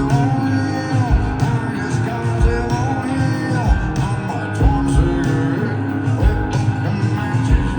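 Live country-rock band playing at full volume: guitars, bass and a steady kick-drum beat, with sung vocals and sliding notes over it.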